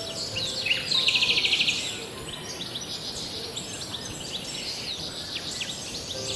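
Several wild songbirds chirping and calling over a steady hiss of forest background noise. About a second in, one bird gives a loud, rapid trill of about a dozen notes lasting under a second.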